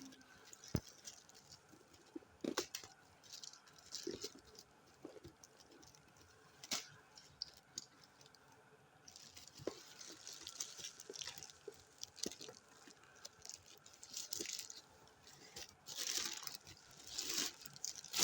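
Shoe packaging being handled and opened: irregular rustling and crinkling with scattered sharp taps and clicks, busiest in the second half.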